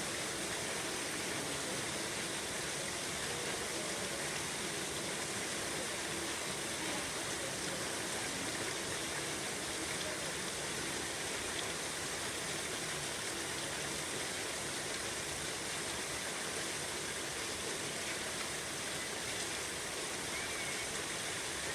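Steady rain falling, an even hiss of drops with no breaks or knocks.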